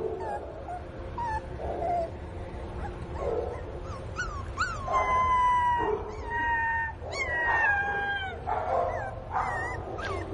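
Pinscher puppy crying: a few soft whimpers, then long high whines, each held about a second and drifting down in pitch, broken by quick falling yelps. It is a puppy's distressed crying, which the uploader takes for missing its mother.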